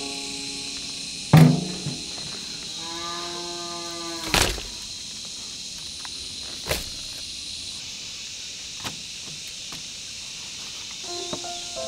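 Soft background music with a few held notes, under which a plastic basin and dried cucumbers knock onto a wooden table. The loudest knock comes about a second and a half in, and a few sharper clicks follow.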